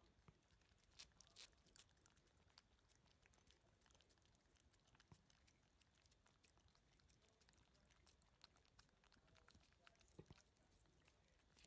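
Faint, irregular wet clicks of cats licking and chewing a creamy lickable treat, with a few louder smacks about a second in and again near the end.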